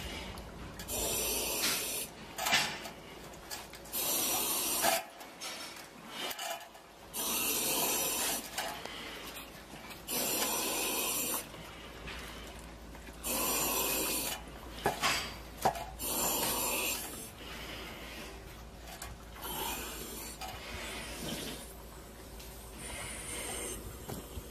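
A person breathing heavily in a steady rhythm, a loud rasping breath about every three seconds, fading somewhat in the last third.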